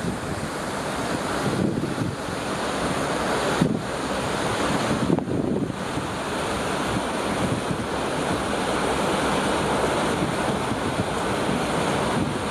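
Wind buffeting the microphone on a moving ferry's open deck, over the steady rush of the churning wake water, with a few short lulls in the first half.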